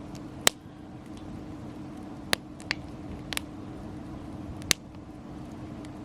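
Softwood firewood burning in a pyramid fire stand, popping with five or so sharp, irregular cracks. The loudest comes about half a second in and another near the end. Under them runs a steady low background hum.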